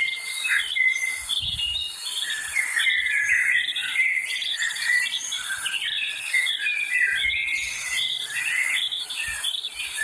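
Several songbirds singing, a dense run of short chirps and warbling phrases, over a steady high-pitched hiss of insects.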